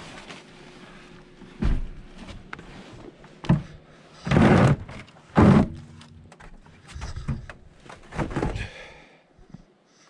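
Thumps and scuffing as a person climbs out of a pickup's camper-shell bed over the tailgate, a string of separate knocks with the two loudest about four and a half and five and a half seconds in.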